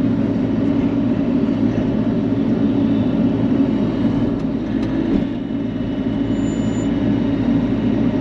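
Bobcat E42 mini excavator's diesel engine running steadily under work, with a brief dip about five seconds in.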